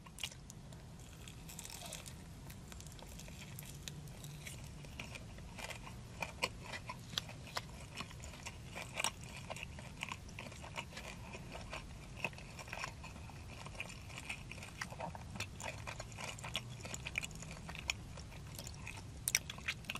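A person chewing a mouthful of sauced, breaded buffalo chicken tender: irregular soft crunches and mouth clicks over a low steady hum.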